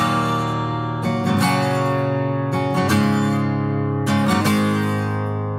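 Country song's instrumental gap: acoustic guitar strumming chords that ring on between strums, a new strum about every second.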